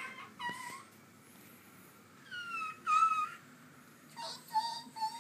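High-pitched whimpering cries: two short ones with bending pitch about two and three seconds in, then fainter thin whines near the end.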